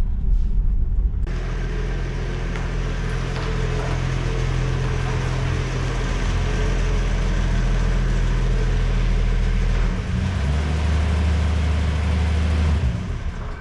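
1965 Ford Falcon's engine running steadily on the road, with tyre and wind noise. About ten seconds in the engine note changes, and near the end the sound drops away.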